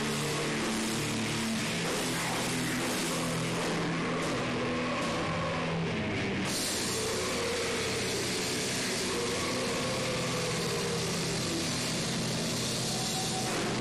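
Heavy metal band playing live: distorted electric guitars, bass and drums in a dense, steady wall of sound, recorded through a camcorder's microphone.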